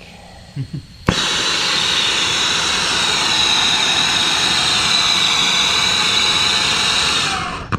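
A brazing torch lit with a click, then burning with a loud, steady rushing hiss for about six seconds before it is shut off near the end.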